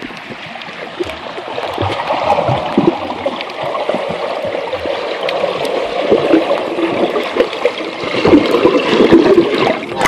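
Muffled pool water heard through a phone's microphone held under the surface: gurgling and bubbling with scattered soft knocks and swishes, the high end dulled by the water.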